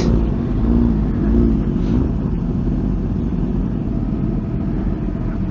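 Several sport motorcycles idling together, a steady low rumble.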